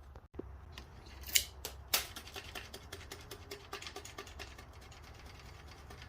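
A run of small, sharp plastic-or-metal clicks and ticks from hand work on the bike, with two louder snaps about one and a half and two seconds in.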